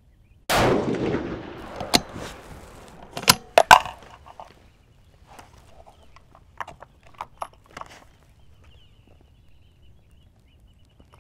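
A single rifle shot about half a second in, its report dying away over a second or so, followed by several sharp clicks and knocks of handling at the bench.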